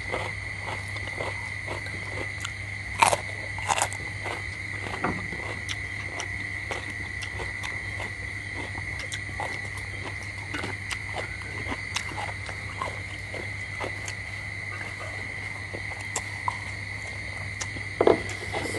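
People eating boiled balut eggs at a table: chewing and mouth sounds with scattered small clicks and taps of eggshells and spoons on bowls, a few sharper taps about three seconds in and near the end. A steady high whine and a low hum run underneath.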